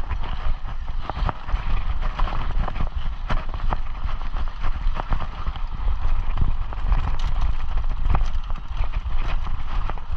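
Mountain bike riding over a rough dirt trail: tyres rumbling on the packed dirt and the bike rattling and knocking over the bumps, with wind rumble on the microphone.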